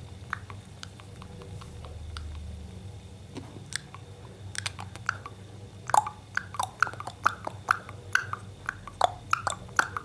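Kissing smacks and beak clicks between a man's lips and an Indian ringneck parrot: a few soft clicks at first, then from about halfway a quick run of sharp smacks, many with a short squeaky chirp, about two a second.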